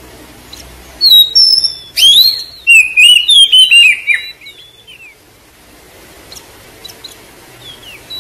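Oriental magpie-robin (kacer) song: about a second in, a loud run of fast, varied whistles and chirps that lasts about three seconds, with softer scattered chirps before and after it.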